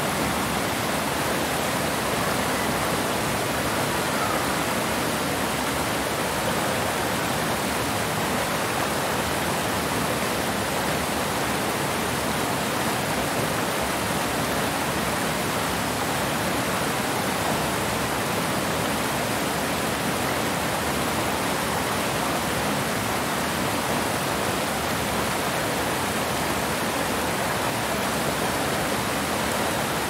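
Waterfall: a steady rush of falling water, even and unbroken throughout.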